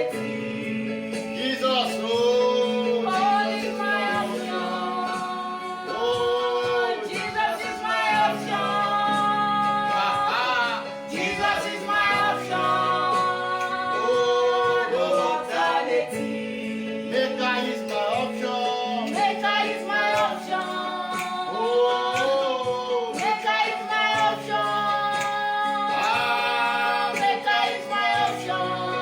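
Gospel song: a female lead voice singing with backing vocals over sustained chords.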